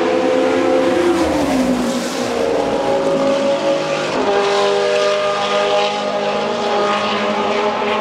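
Historic Formula One car engine running at high revs. Its pitch falls about a second and a half in as it slows for the corner, then it settles on a steady note as it runs on through the bend.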